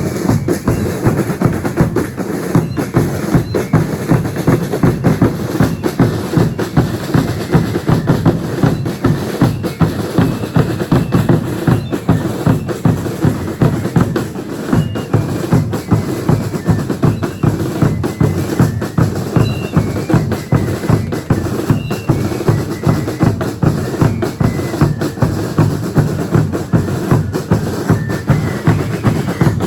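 Bass and snare drums of a Chilean religious dance troupe beating a steady, fast rhythm without a break.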